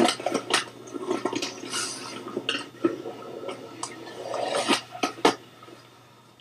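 Skateboard wheels rolling over concrete in a rushing noise, broken by a run of sharp clacks and knocks from the board. It is loudest at the start and fades away near the end.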